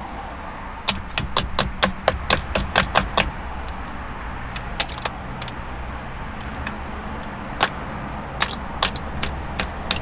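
Sharp plastic clicks and taps as a small pointed tool pokes at the release clips on the back of a car steering wheel, working the airbag module loose. A quick run of about a dozen clicks, roughly four or five a second, comes about a second in, then single clicks at scattered intervals.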